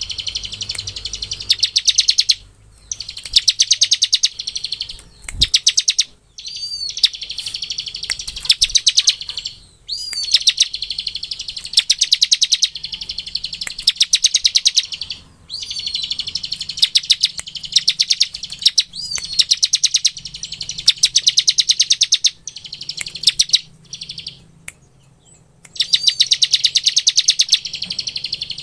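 Bar-winged prinia (ciblek) singing its 'ngebren' song: long runs of very rapid, buzzy repeated notes, each several seconds long, broken by short pauses and a few sliding call notes.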